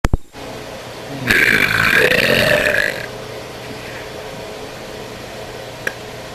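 A woman's single long, loud belch, starting about a second in and lasting about a second and a half.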